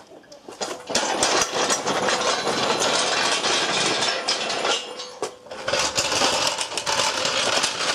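Steel engine hoist being wheeled away over concrete on its casters: a steady rattling that breaks off briefly about five seconds in.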